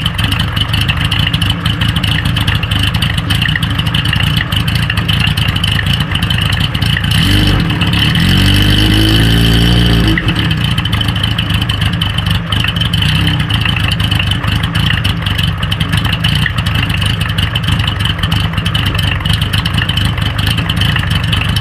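Kawasaki Z1's air-cooled inline-four idling through a Tokyo Tekkan hand-bent early-type exhaust with S322 silencer. About seven seconds in it is revved up, held for a couple of seconds, then drops back to idle.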